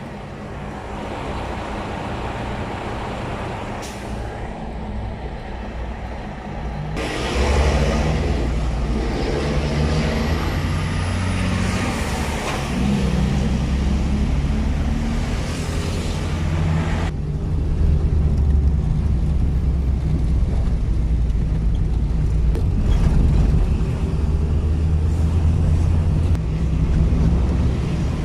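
Motor vehicle running on the road: a steady low engine and road rumble that grows louder about seven seconds in, with abrupt changes in the sound at about seven and seventeen seconds.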